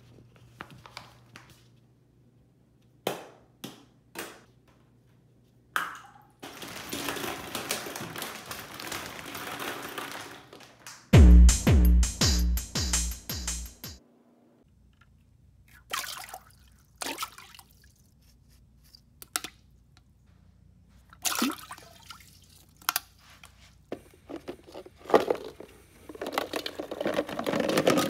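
Hollow plastic play balls and golf balls clicking and clattering as they are handled and dropped into a toilet bowl, with a short loud burst of music partway through. Near the end a toilet starts to flush, water rushing.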